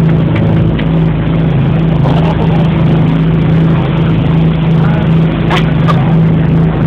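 Motorboat engine running steadily under way, a constant low hum with the rush of wind and water over it.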